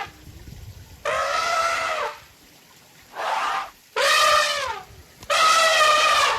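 Four loud pitched animal calls, each lasting about half a second to a second, most of them dropping in pitch as they end.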